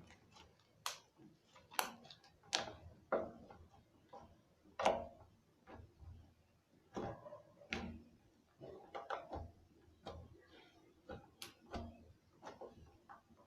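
Glitter slime being squeezed and pressed by hand, giving off irregular sharp clicks and pops, about one or two a second.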